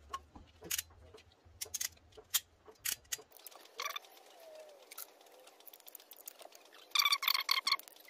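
Small clicks and scratches of hands handling thin electrical wires and crimp connectors, then near the end a quick run of sharp clicks as a hand crimping tool is worked on the connector.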